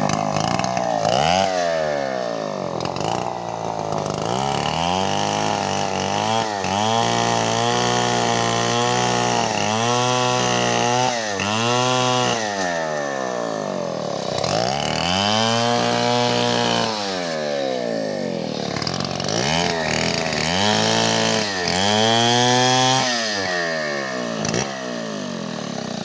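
STIHL chainsaw cutting lengthwise through coconut-palm wood. The engine speed rises and falls over and over as the throttle is worked and the chain bites into the cut.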